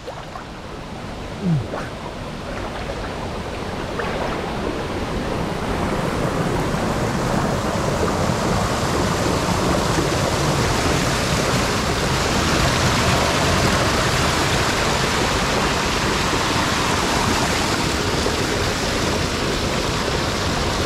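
River water rushing and splashing over rocks at a small waterfall, growing louder over the first several seconds and then steady. A short bump about a second and a half in.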